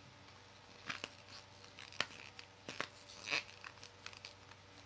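A plastic Air-Tite coin capsule turned and handled in the fingers: scattered light clicks and brief scrapes, the sharpest click about two seconds in and a louder scrape about a second later.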